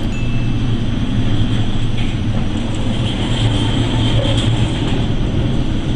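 Steady low drone of a ship's machinery mixed with rushing wind and sea noise, heard aboard a vessel ploughing through heavy storm waves.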